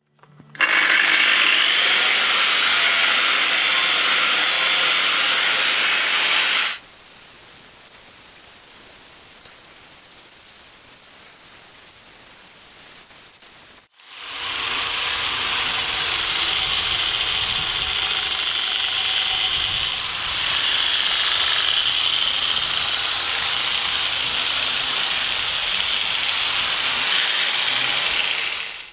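Power tool sanding steel: a Makita angle grinder fitted with a belt-sander attachment. It runs in two long, steady stretches, with a much quieter gap from about 7 to 14 seconds in.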